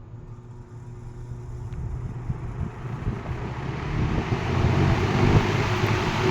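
1950s Kenmore automatic box fan with a GE motor starting up on high speed: a low motor hum and a rush of air that grow steadily louder as the blades spin up to full speed.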